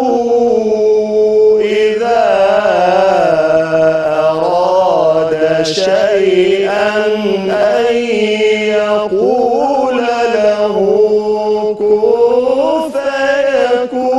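A man's solo voice reciting the Quran in the melodic mujawwad style: long held notes with wavering, ornamented pitch, sung in phrases separated by brief pauses.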